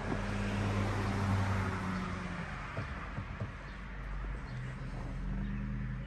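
A motor vehicle's engine hum and road noise, swelling during the first couple of seconds and then easing off, with a fainter hum returning near the end.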